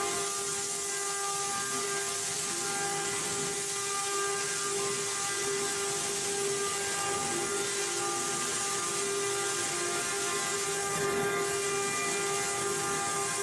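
CNC router spindle running steadily with a constant high whine, over a continuous hiss of cutting.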